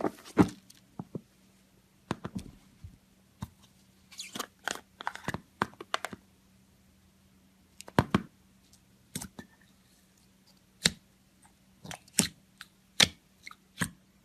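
Clear slime being pressed and poked by hand, giving irregular sticky clicks and pops, with a few louder snaps in the second half.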